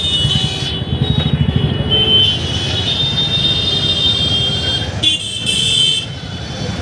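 Motorbike and scooter engines idling in a packed traffic jam, a low pulsing rumble, with horns sounding in steady high tones now and then.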